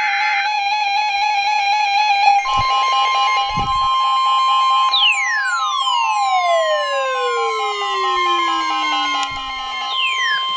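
NOAA Weather Radio 1050 Hz warning alarm tone: one steady electronic tone that starts about two seconds in and holds, signalling that a spoken weather warning follows. It plays over synthesizer music. Midway a long falling whistle glide drops steadily in pitch for about five seconds, and a second, shorter falling glide comes near the end.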